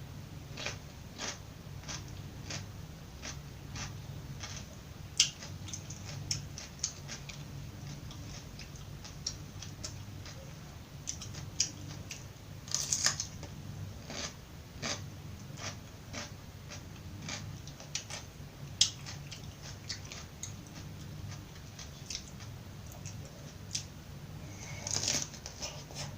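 Close-up crunching and chewing of raw vegetables: a run of crisp cracks and crackles, with a few louder crunches spread through.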